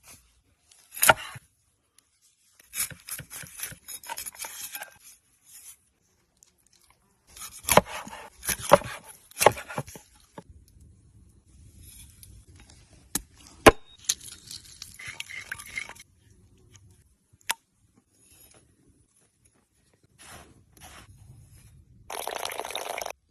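Food being prepared by hand outdoors: irregular scraping, crunching and tapping, with a few sharp single knocks, such as a knife striking a board.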